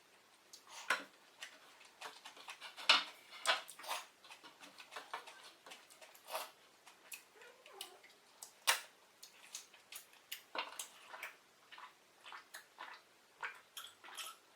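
Close-miked eating sounds: chewing and wet mouth clicks, many short irregular ticks with now and then a louder one.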